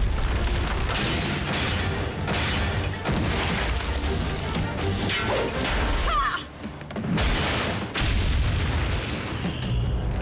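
Sound effects of an animated robot fight: repeated booming impacts and crashes, over a dramatic music score.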